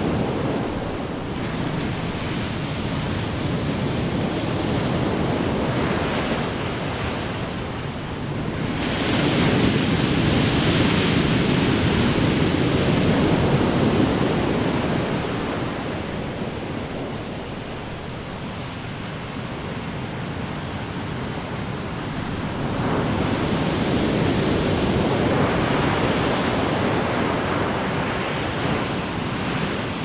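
Ocean waves crashing and washing ashore as a steady rush of surf. It swells twice, loudest for several seconds about a third of the way in and again a little past two thirds of the way through.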